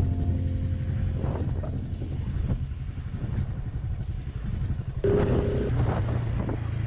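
Small Honda Cub motorcycle engine running steadily while riding, with road and wind noise on the microphone. About five seconds in the sound grows louder.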